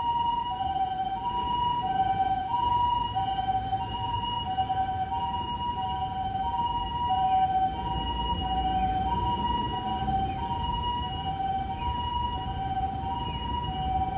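Japanese ambulance siren sounding its two-tone "pee-poh": a higher and a lower tone taking turns, each held about two-thirds of a second. Under it runs the low rumble of road and engine noise from the moving vehicle.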